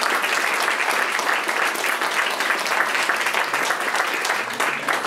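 Audience and panel applauding: many hands clapping in a dense, steady round.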